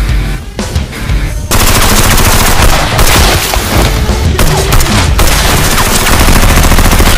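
Rapid automatic gunfire, a machine-gun sound effect dubbed over the Nerf-blaster action, with music underneath. The firing turns much louder and denser about a second and a half in.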